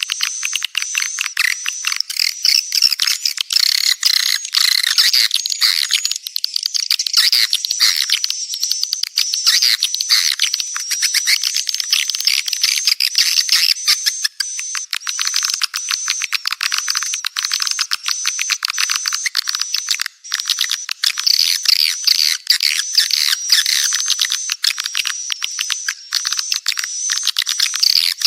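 A dense chorus of swiftlet calls: rapid chattering clicks mixed with short, high, repeated chirps, running without a break. It is a 'birahi' (courtship) call recording of the kind played to lure swiftlets into a nesting house.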